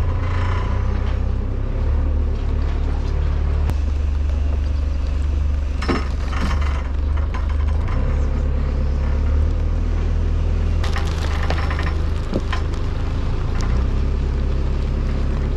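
Heavy diesel engine running at low revs, its note stepping up and down a few times, with a few metal clanks as scaffolding tubes and bulk bags are lifted off a lorry's flatbed.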